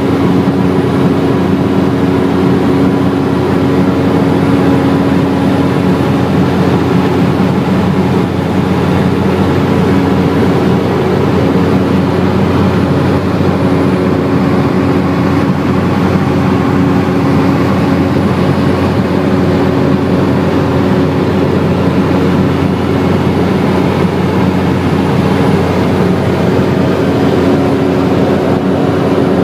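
Cessna 208 Caravan's PT6A turboprop engine and propeller running at steady power, a constant loud drone with a steady propeller hum.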